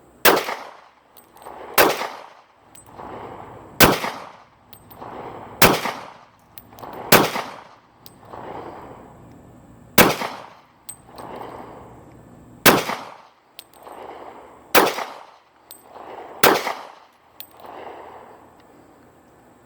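Glock pistol fired nine times at a slow, uneven pace, one shot every two seconds or so. Each sharp crack is followed by a rolling echo.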